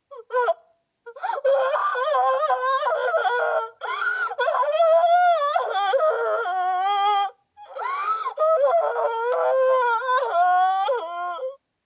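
High-pitched cartoon girl's crying: a short sob, then long wavering wails and sobs broken by brief pauses about 4 and 7.5 seconds in.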